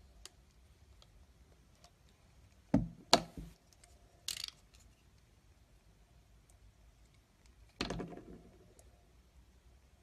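A metal blade cutting into bar soap: a few sharp cracks, two close together about three seconds in, a short one a second later, and a longer crackling one near eight seconds, with little sound in between.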